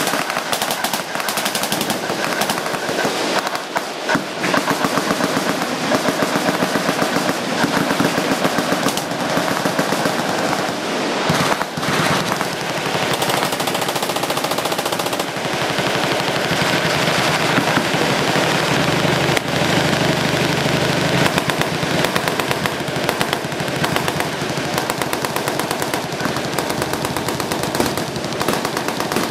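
Many machine guns firing at once: dense, overlapping automatic fire that keeps up without a break.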